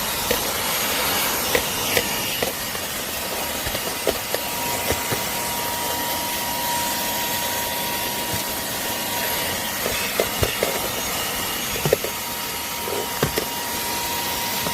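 NEXPOW 7000Pa cordless handheld car vacuum running steadily: a constant whine over the rush of its suction, with scattered short clicks and knocks.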